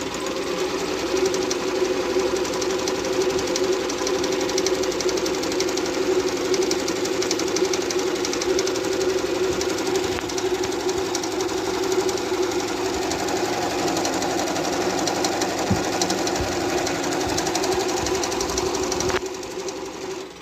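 Singer computerized sewing machine stitching a heart-shaped decorative pattern, running steadily with a rapid, even stitch rhythm, then stopping near the end.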